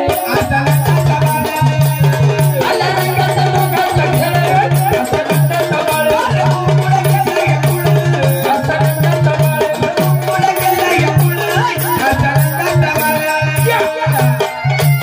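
Marathi gavlan folk music for a jagran gondhal: an instrumental passage with a repeating low drum beat, a melody line and rattling percussion.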